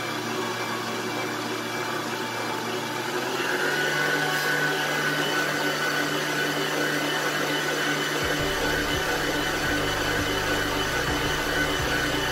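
Hanabishi electric stand mixer running, its beaters whipping chiffon cake batter of egg yolks and cake flour. About three seconds in, the motor is switched to a higher speed and its whine steps up in pitch and gets louder, then runs steadily.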